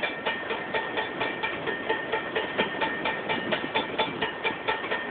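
Railroad crossing signal bell ringing rapidly and evenly, about four to five strokes a second, over the rolling noise of a Pan Am Railways freight train's boxcars passing through the crossing.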